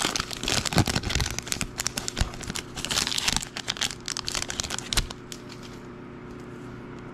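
Foil trading-card pack wrapper crinkling and tearing as it is ripped open and the cards are pulled out. The crinkling stops about five seconds in.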